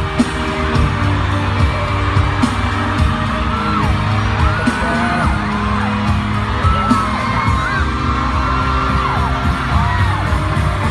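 Loud pop music with a strong, steady beat, with voices whooping and yelling over it.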